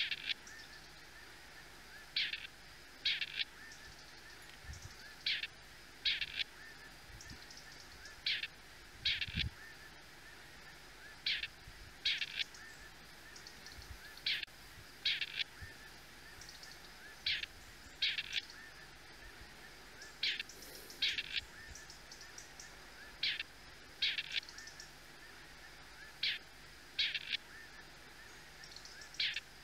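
Grey partridges calling: short calls in pairs, the two notes under a second apart, each pair repeated about every three seconds. A faint low thump comes about nine seconds in.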